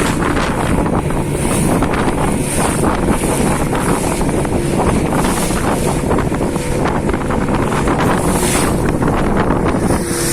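Wind buffeting the microphone over the steady running of a small fishing boat's engine.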